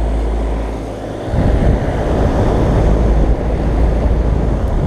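2004 American Standard Heritage 11 heat pump's outdoor unit running iced up in cool mode, a steady low hum. About a second in, a louder rough rushing rumble of wind on the microphone takes over.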